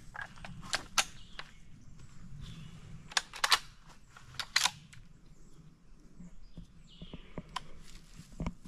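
Sharp metallic clicks of a .30-06 rifle being handled and readied to fire, several in quick pairs during the first five seconds, then quieter handling and movement.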